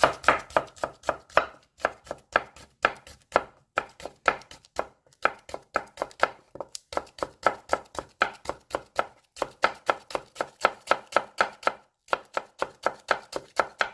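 Chef's knife finely julienning stacked layers of daepa (Korean leek) on a bamboo cutting board: quick, even knife taps of about five cuts a second, with a few brief pauses.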